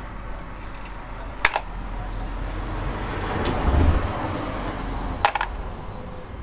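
Small metal engine parts lifted off a cylinder head clinking into a plastic parts tray: two sharp clicks about four seconds apart, with some handling noise between them, over a low steady hum.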